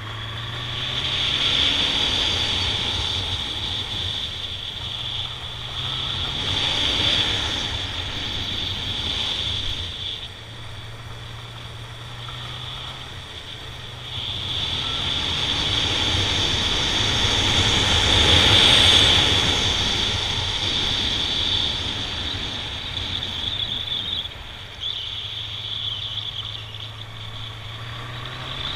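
Honda Nighthawk 750 motorcycle riding along, its inline-four engine note rising and falling with the throttle, with wind rushing over the microphone that swells at speed and is loudest a little past halfway.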